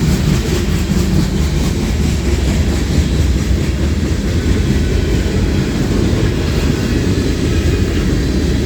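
Freight cars of a manifest train rolling past close by: a loud, steady rumble of steel wheels on rail.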